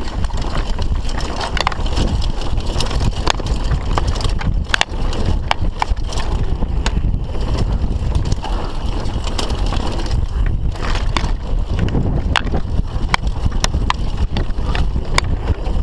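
Mountain bike riding fast down a rough dirt trail: a steady low rumble of tyres and air, with frequent sharp clacks and rattles from the bike over rocks and roots.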